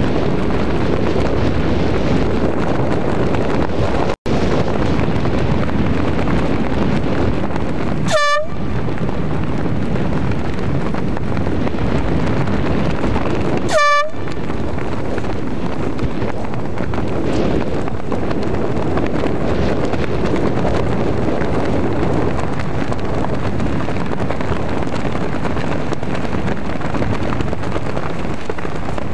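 Two short horn blasts, about six seconds apart, over a steady rushing noise of wind and water on the microphone. The sound cuts out for an instant about four seconds in.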